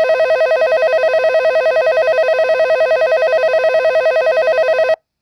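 Yamanote Line train-themed alarm clock sounding its alarm: a loud, steady electric-bell ringing with a rapid trill, played through the clock's speaker, that cuts off suddenly near the end.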